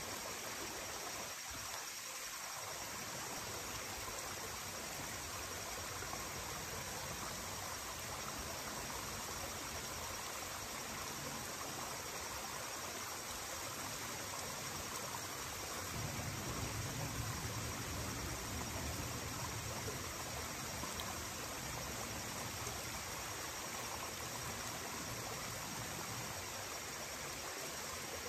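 Waterfall running down a rock face: a steady rush of water. A low rumble swells for a few seconds just past the middle.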